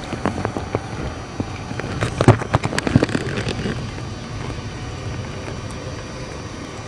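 Irregular knocks and crunches from the person filming moving about on a snow-covered deck, bunched together about two to three seconds in.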